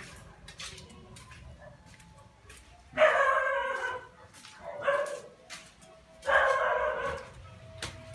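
A dog barking in three drawn-out barks, the first about three seconds in and the last lasting about a second.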